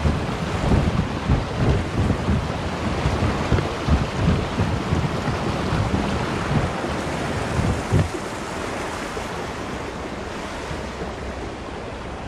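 Fast water rushing through a narrow concrete chute as a kayak runs down it, with frequent low thumps and rumbles for the first eight seconds or so. After that the rush of water is steadier and a little softer.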